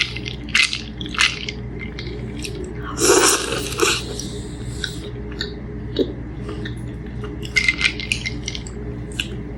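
Close-up mouth sounds of a person chewing a soft Crumbl Oreo cookie dipped in milk: wet clicks and smacks, with a louder rustling stretch about three seconds in.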